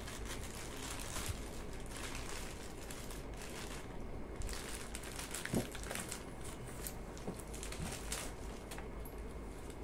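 Thin plastic bag crinkling and rustling as it is pulled off a new cooler fan motor, with a few light clicks from the motor being handled.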